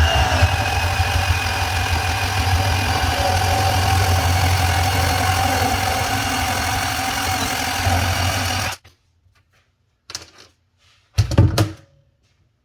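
Milwaukee 12 V cordless bandsaw running steadily through a cut for about nine seconds, then stopping suddenly; a couple of short knocks follow.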